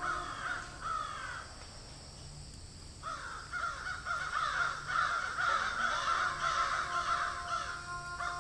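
A flock of birds calling at once: many short, overlapping calls that drop in pitch. The calling thins out for about a second and a half, then swells again, louder.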